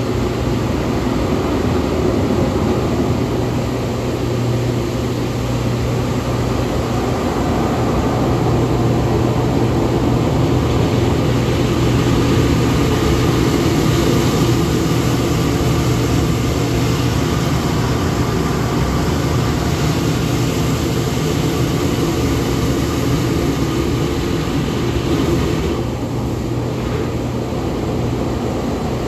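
Hydromassage bed running: its pump and water jets make a steady, loud mechanical hum with a low drone.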